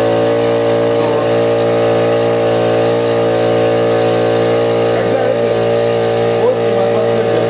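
Chinese piston air compressor running with a loud, steady drone. This is the unit that knocks and will not pump up to 8 atmospheres.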